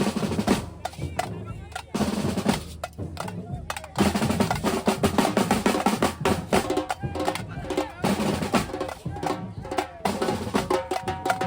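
Batucada samba drum group playing: deep bass drums and snare drums in a fast, dense rhythm. The strokes come in short choppy phrases for a couple of seconds, then from about four seconds in the whole group plays on without a break.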